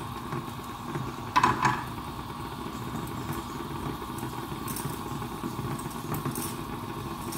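Kitchen cooker hood fan running with a steady hum. A brief sharp sound about a second and a half in.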